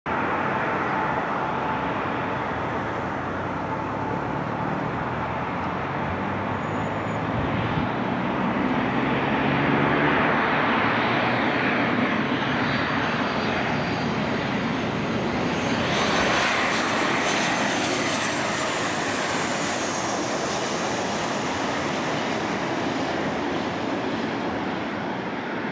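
Boeing 737-800 airliner's CFM56-7B turbofan engines on final approach to land. The jet noise swells as the plane passes low overhead, then a high whine falls in pitch as it moves away toward the runway.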